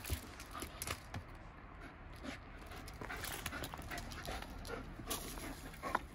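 Wolfdogs panting and scuffling against each other as one mounts the other, with a short whine near the end.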